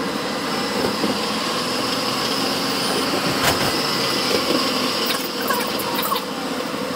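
A Melbourne tram running, heard from inside the passenger saloon: steady running noise with a steady high whine. A single sharp click comes about three and a half seconds in.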